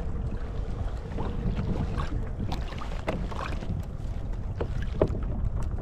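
Wind buffeting the microphone on open water from a sea kayak, a steady low rumble, with a few faint scattered clicks and taps.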